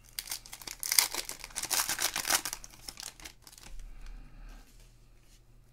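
Foil wrapper of a trading-card pack being torn open and crinkled by hand in a dense crackle, loudest in the first few seconds. Fainter rustling follows as the cards come out of the pack.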